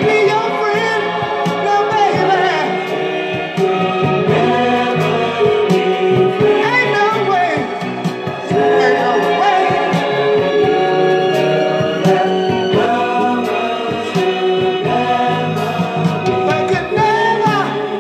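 Music with singing: voices hold long notes and slide between pitches over an instrumental backing.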